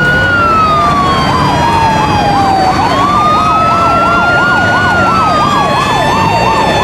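Fire truck siren: a slow wail rising and falling, joined from about a second in by a faster warble of about three swoops a second.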